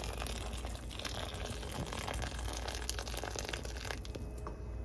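Hot water pouring from a kettle into a pot of frying chicken and onions, the stream splashing into the pan, until the pour stops about four seconds in.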